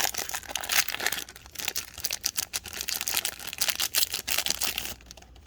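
Foil wrapper of a trading-card pack crinkling and tearing as it is opened, with many sharp crackles and clicks, stopping about five seconds in.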